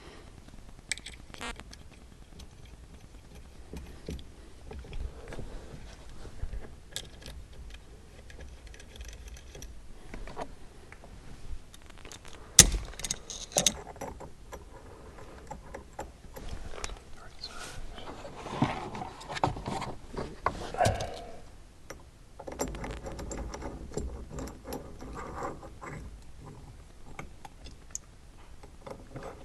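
Scattered clicks, knocks, metal rattles and scrapes of parts and tools being handled while a steering-wheel quick-release hub is fitted to a steering column, with one sharp click about twelve seconds in.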